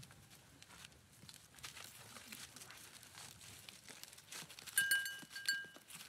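Goats' hooves shuffling through dry fallen leaves and grass, a steady crinkling rustle. About five seconds in come two short high-pitched chirps, just under a second apart, the loudest sounds here.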